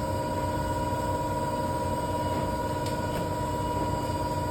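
Steady machine noise: a low rumble with a constant hum and whine that holds one pitch and never changes in level.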